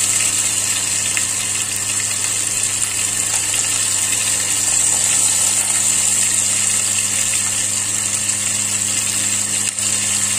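A steady electric hum with a high hiss over it, unchanging throughout.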